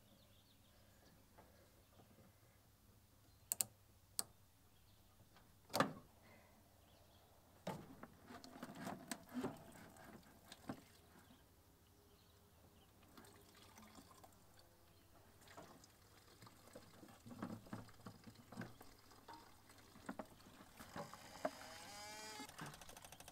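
Old gasoline being drained from a riding lawn tractor's fuel line into a plastic bucket: scattered clicks and knocks of hands working the fuel line and hose, then near the end a trickle of fuel into the bucket, rising in pitch as it fills.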